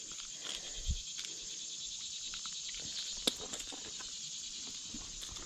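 Steady high-pitched insect chorus of late-summer crickets, with a few faint clicks, one sharper about three seconds in.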